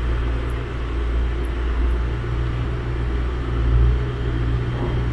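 Steady low rumble of a train running, heard from on board.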